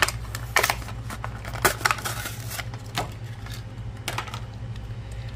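Stiff plastic blister pack crackling and snapping as it is pried open and a die-cast toy car is pulled free of its cardboard card: a string of irregular sharp crackles and clicks.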